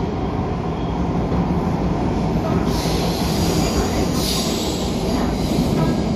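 Running noise inside an MTR A-Train metro car in motion: a steady low rumble of wheels on rail, with two brief high-pitched swells of wheel squeal about three and four seconds in. The car's traction motor has failed, so it runs unpowered as a trailer car.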